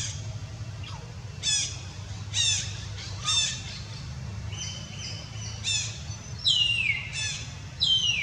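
Infant macaque giving a string of short, high-pitched calls, most falling in pitch, about one a second, with a longer falling call near the end, over a steady low rumble.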